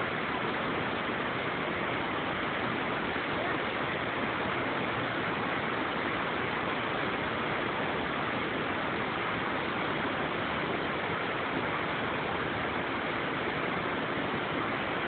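Steady, even rushing noise of flowing water.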